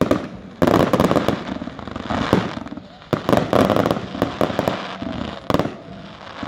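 Ground-launched multi-shot consumer fireworks going off: waves of rapid shots and crackling bursts, with a single sharp bang near the end.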